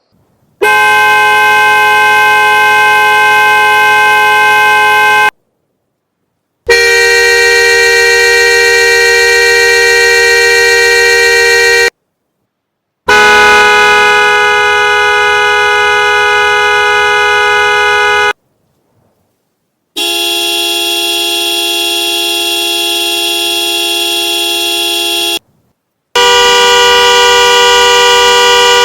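Car horns sounded in five long, held blasts of about five seconds each, from different cars, with short breaks between them. Each blast is a steady chord of horn tones whose pitch differs from car to car; the fourth is a little quieter, and the last is still going at the end.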